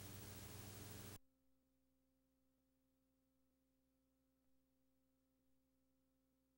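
Videotape transfer noise: a loud hiss with low hum that cuts off abruptly about a second in, leaving near silence with only a faint steady electrical hum.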